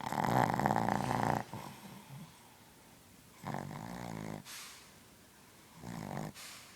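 Snoring: three rattling snores, the first the loudest and longest at over a second, the other two shorter, with a breathy exhale after each of the later ones.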